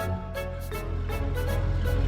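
Background music: a light instrumental tune with a steady beat.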